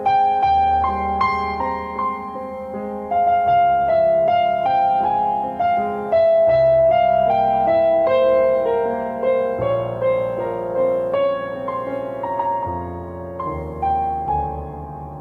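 Digital piano played with both hands: a slow melody over bass notes that change every two to three seconds, growing softer near the end.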